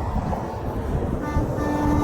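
Semi truck air horn: a short blast about a second in, then a longer one, over a steady low rumble of highway traffic.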